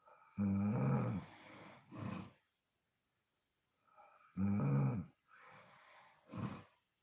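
A woman snoring in her sleep, two breaths about four seconds apart. Each is a loud, low, rattling snore of under a second that tails off, followed about a second later by a short breathy puff.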